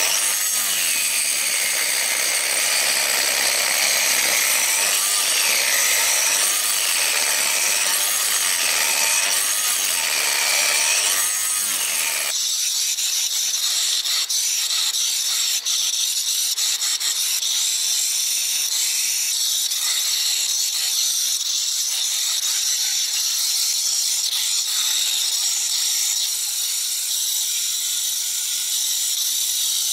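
Electric angle grinder with a polishing pad running against a wet stone slab, its whine rising and falling as the pad is pressed and eased on the surface. About twelve seconds in the sound changes abruptly to a steadier, duller grinding.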